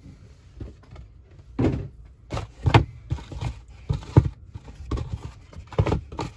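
Small cardboard die-cast toy car boxes being handled and set down, making a series of dull thunks, about five strong knocks with lighter rustling between them.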